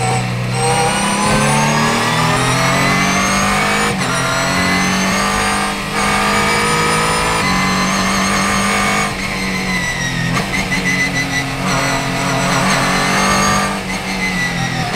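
Ligier JS2 R's Ford 3.7-litre V6 heard from inside the cockpit, revving hard under full throttle and rising in pitch, with upshifts about four and six seconds in. Past the middle it comes off throttle for braking and a downshift, then rises again near the end.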